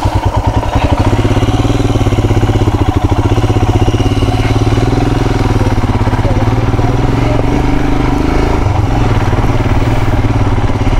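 Royal Enfield Himalayan's single-cylinder engine running with an even, pulsing beat, picking up revs about a second in and then holding steady.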